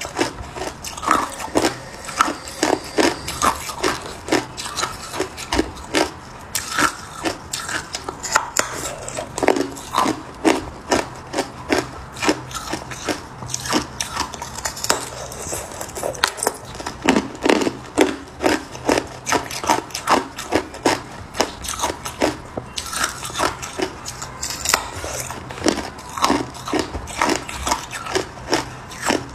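A thin sheet of hard, clear ice being bitten and chewed close to the microphone: sharp cracks and crunches, several a second at an irregular pace.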